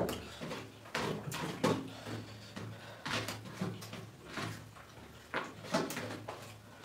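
Hands scooping and mixing rice on steel thali plates, with irregular sharp knocks and clatter of fingers and plates against the metal, over a steady low hum.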